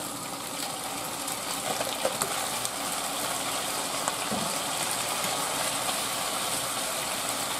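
Browned chicken pieces sizzling steadily in hot olive oil and butter in a skillet, with a few light clicks about two seconds in.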